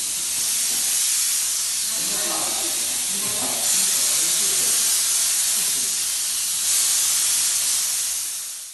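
Jet of high-temperature steam hissing steadily from a handheld steam lance. It gets louder twice, about a third of the way in and again near the end, then fades out at the end.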